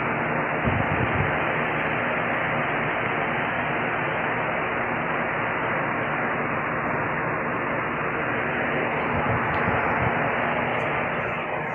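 Steady static-like hiss with a faint low hum underneath, and a few low bumps about a second in and again near ten seconds in.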